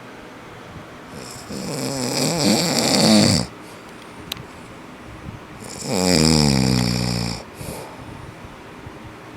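A man snoring loudly in his sleep: two long snores, each lasting a second and a half to two seconds, with quieter pauses between them. The first swells louder before cutting off.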